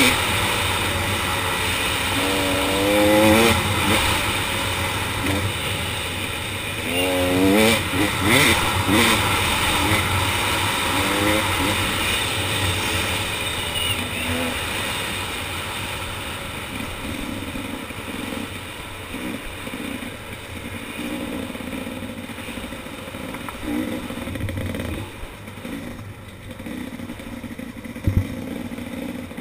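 KTM 300 XC single-cylinder two-stroke dirt bike engine revving hard under way, its pitch sweeping up several times in the first dozen seconds, then running steadier and a little quieter. A single sharp knock comes near the end.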